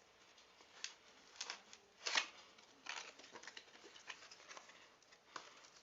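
Packaging being handled: scattered rustles and light clicks of plastic and cardboard, with the loudest crackle about two seconds in.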